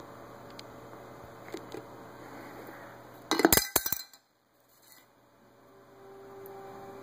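Metal sonic screwdriver replica clinking against its clear acrylic display stand. A few light taps come first, then a quick cluster of sharp clinks about three and a half seconds in.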